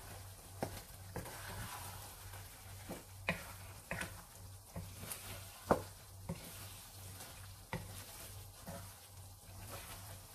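Wooden spatula stirring sticky glutinous rice in a syrupy coconut-milk and sugar mixture in a nonstick frying pan, with a light sizzle and irregular scrapes and taps of the spatula on the pan, the sharpest about halfway through. A low steady hum sits underneath.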